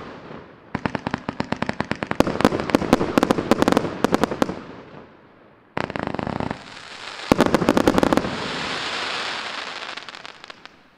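Maxsem MC301 fireworks cake (30 mm calibre, 300 shots) firing its last shots: rapid volleys of sharp pops and bursts. About six seconds in comes a sudden short rush of sparks from the base, then one more quick volley, then a steady hiss that fades out near the end.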